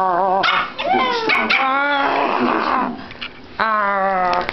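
A dog whining and howling in long, wavering cries, with a rougher, quieter stretch in the middle before another long cry.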